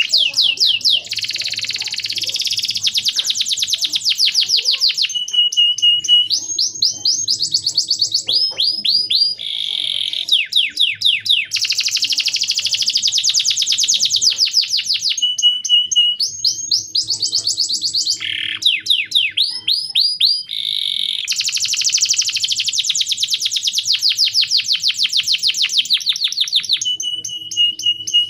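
Male domestic canary singing loudly and continuously in fast rolling trills, rising sweeps and a held whistled note. The same run of phrases comes round about every ten seconds, as a looped training song.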